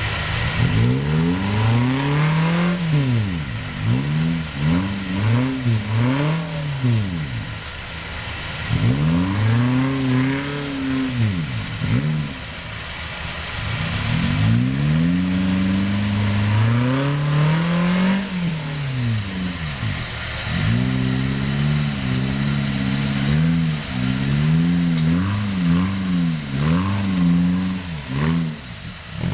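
Suzuki Jimny engine revving up and down again and again, each rise in pitch followed by a fall as the throttle is worked.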